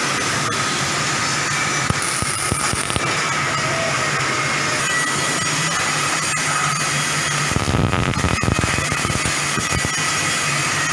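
Welding robot's arc welding, a steady crackling hiss with a low hum running under it.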